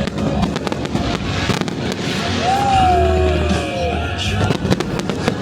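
Fireworks going off, with many sharp pops and crackles in quick succession, over music.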